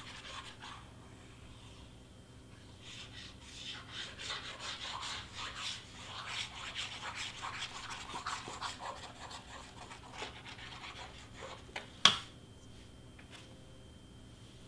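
Hands handling and rubbing cardstock pieces: a stretch of rustling and scraping with small ticks, then one sharp knock about twelve seconds in.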